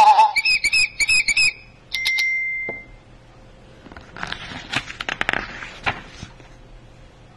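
Electronic sound-book speaker playing a mouse-squeak sound effect: a fast run of high, wavering squeaks, followed about two seconds in by a short, steady electronic beep. Then the book's pages are handled and turned, a scatter of soft paper rustles and flaps.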